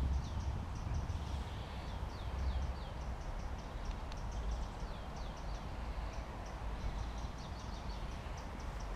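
Small songbirds singing in the trees: a string of short, high chirps and down-slurred whistles repeating through, over a steady low rumble.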